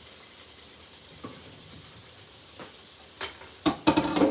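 Kitchen clatter of boiled potatoes and a metal pot against a glass baking dish. A few faint clinks come first, then a quick run of loud knocks and clinks near the end as the potatoes go into the dish.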